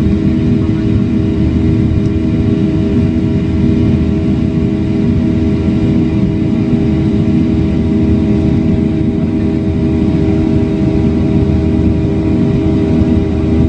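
Airplane engines running: a loud, steady drone with several held tones that neither rise nor fall.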